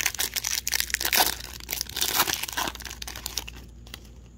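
Wrapper of a Parkhurst hockey card pack being torn open and crinkled by hand: a run of dense crackles that thins out and dies down near the end.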